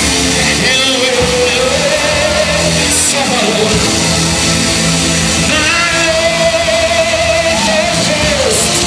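Worship music: a singer holding long, wavering notes over a full band accompaniment.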